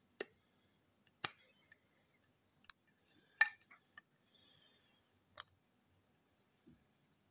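Sharp clicks and snaps of small hard parts being worked by hand while fitting a front coupling to a toy train engine: five spaced about a second apart, the loudest about three and a half seconds in, followed by a few lighter ticks and a short scrape.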